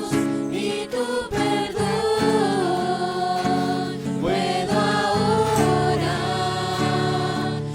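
Christian praise music: a worship song playing on without words between verses.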